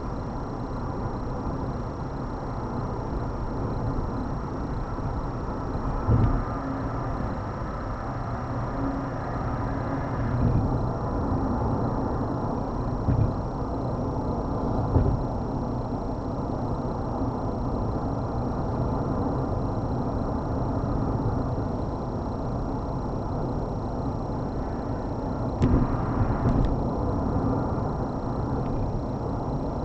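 Steady road and tyre noise of a car cruising at highway speed, heard from inside the cabin, with a few brief thumps.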